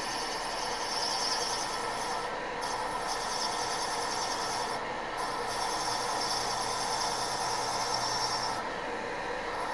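Milling machine running a hollow mill down over a brass pin, turning it to size: a steady machining drone with a high cutting noise from the brass. The cutting noise breaks off briefly twice and again near the end.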